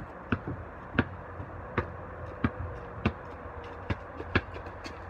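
Basketball bounced on a concrete driveway, about seven slow dribbles a little under a second apart.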